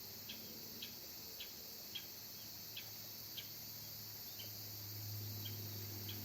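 Field ambience of calling insects: short, high chirps repeating about twice a second over a steady high hiss. A low hum joins about four seconds in.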